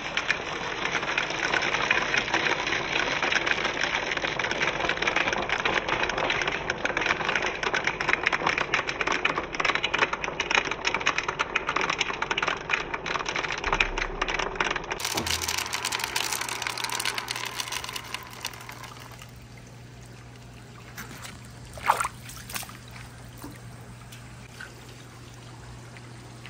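Water pouring and trickling down a wooden water marble run, with many small clicks through it. About two-thirds of the way in the water dies away, leaving a faint steady hum and a single sharp click.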